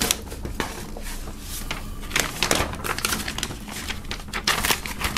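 A large paper poster being folded up by hand: irregular rustling and crackling of the sheet, with many small sharp crinkles.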